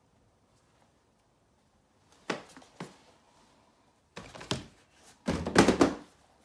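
Handling noises of sneakers and a cardboard shoebox: a few short knocks and rustles, the loudest cluster near the end as the box is moved off the suitcase.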